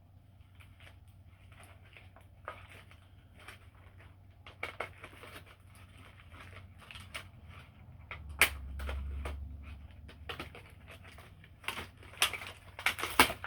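Doll packaging crackling and clicking as it is worked apart by hand, with several sharp, louder snaps near the end as the doll comes free.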